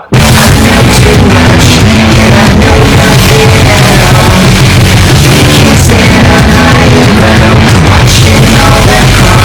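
Loud rock music with a singing voice and guitar, starting abruptly at the opening.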